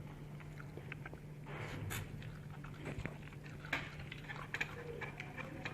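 A person chewing a mouthful of tteokbokki and ramen noodles, with scattered small wet mouth clicks, over a steady low hum.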